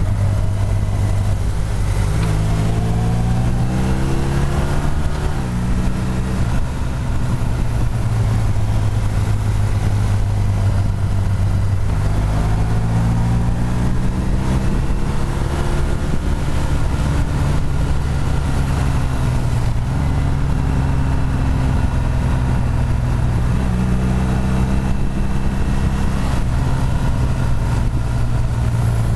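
Motorcycle engine under way, rising in pitch as it accelerates about two seconds in, again around twelve seconds and near the end, over steady wind noise.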